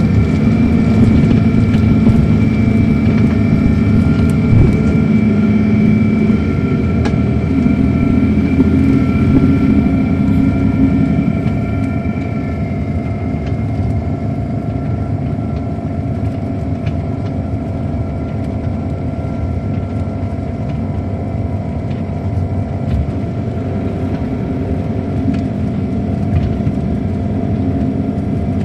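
Inside a 2007 MCI D4500CL coach, its Caterpillar C13 diesel runs under way with a deep rumble and a steady high whine. About eleven seconds in the sound eases and grows quieter, and the highest whine fades out.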